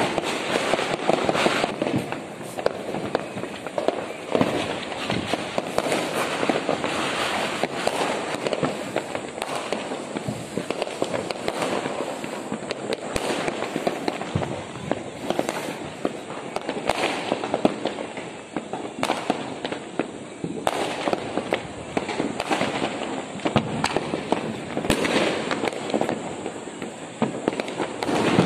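Fireworks and firecrackers going off in large numbers, a dense, unbroken crackle of many pops and bangs.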